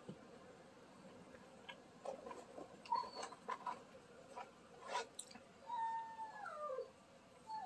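Dog whining: a long whine about two-thirds in that slides down in pitch, with another beginning at the very end, after a few faint short clicks.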